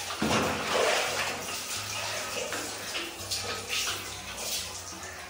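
Water splashing and being poured over a puppy being bathed, in repeated washes about once a second.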